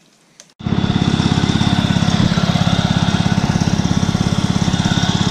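Cub Cadet garden tractor engine running steadily close by, with a fast, even pulse. It cuts in suddenly about half a second in.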